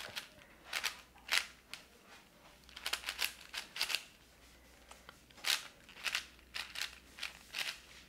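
Layers of a plastic 4x4 Rubik's cube being turned by hand: short clicking, rattling turns in quick, irregular bursts.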